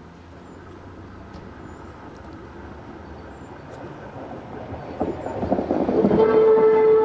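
Vintage tram car approaching and passing close by, its wheels rumbling and clattering on the rails, growing louder from about four seconds in. Near the end a steady high tone sets in.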